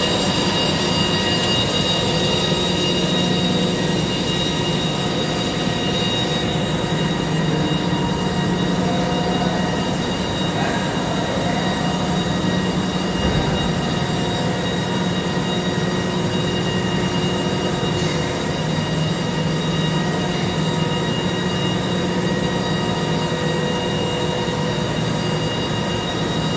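Solventless laminating machine running: a steady mechanical drone with a low hum and several thin, high steady whining tones from its drives and rollers, the level unchanging throughout.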